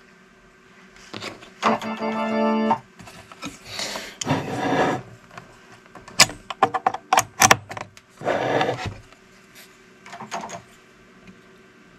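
A power amplifier's output through its speaker cutting in and out in short bursts of music, one of them a held organ-like note, with a run of sharp crackles a little past the middle. The crackles and dropouts come from a bad contact in the output relay as it is pressed on.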